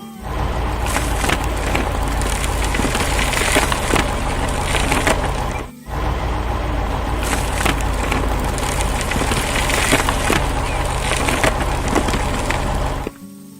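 Heavy construction machine engine running with a dense crunching and cracking of material being broken or moved, cut off briefly about six seconds in and again near the end.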